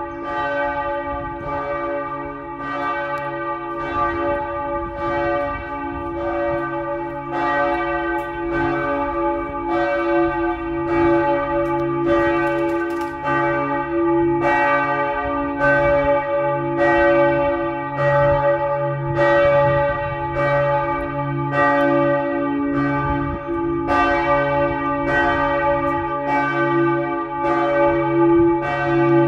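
Bells in the tower of a Reformed church ringing a full peal: several bells swing together, their strikes overlapping about once a second over a lasting hum, and the deepest bell sounds much stronger from about seven seconds in.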